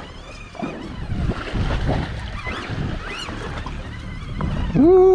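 Wind buffeting the microphone and water washing around a small boat's hull at sea. Just before the end, a short loud pitched cry that rises and falls.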